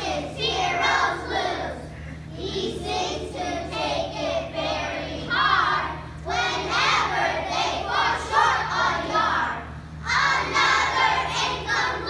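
A group of young children singing together, in phrases of about four seconds with short breaks between them, over a steady low hum.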